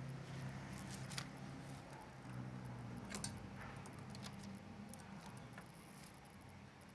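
Light clicks and small rattles of hands handling parts, with two sharper clicks about a second in and about three seconds in, over a steady low hum.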